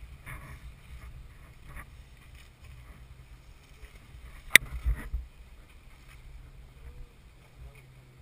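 Toyota FJ Cruiser's 4.0-litre V6 running low and steady as the 4x4 crawls over rock. About four and a half seconds in comes one sharp crack, then a few low thuds, as the truck knocks against the rock.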